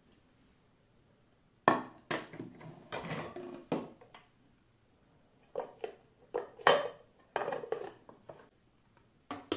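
Irregular knocks and clatter from a plate of ground coffee and the black plastic ground-coffee container of a Kitfort KT-717 coffee grinder being handled on a counter. The sounds start after a quiet second and a half and come in two bunches of sharp clunks.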